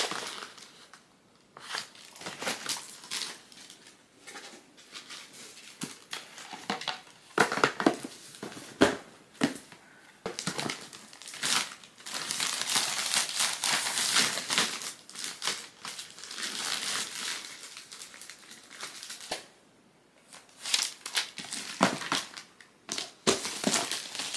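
A box being packed into a pink plastic mailer bag: irregular crinkling and rustling of the plastic packaging, busiest in a long continuous stretch about halfway through.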